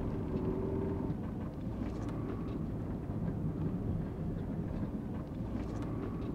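Fiat Fiorino van driving slowly on an unpaved sand-and-gravel road, heard from inside the cabin: a steady low rumble of engine and tyres.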